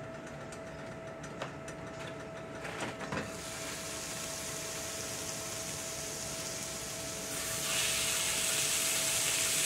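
Raw ground-beef burger patties sizzling in hot cast iron skillets: the sizzle starts about three seconds in as the first patty goes down, and grows louder near the end when a second patty is laid in the other skillet. A faint steady hum and a few light clicks come before the first patty.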